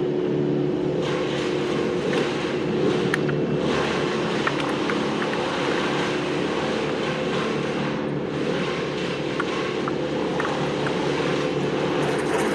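A large engine running steadily at a constant speed, with a few faint clicks and knocks over it.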